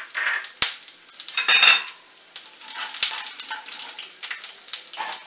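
Carom seeds and asafoetida sizzling and crackling in hot mustard oil in a kadhai, while a spatula stirs and scrapes the pan. There is a louder clatter about one and a half seconds in.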